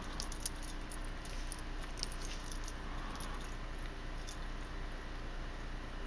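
Faint scattered light clicks and clinks, mostly in the first few seconds, over a low steady background hiss.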